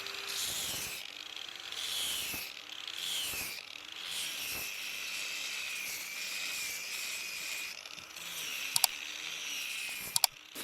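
Wood lathe running, with a tool working the spinning wood: a whine that wavers in pitch, over a hiss that swells in strokes about once a second. Two sharp pairs of clicks come near the end.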